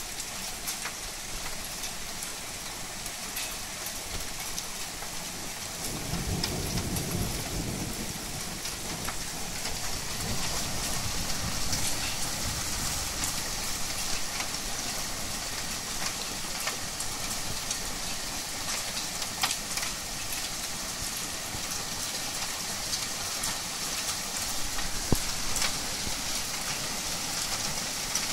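Heavy rain pouring steadily in a thunderstorm. About six seconds in, a low roll of thunder rumbles and fades over a few seconds. Later, a couple of sharp taps of drops land close by.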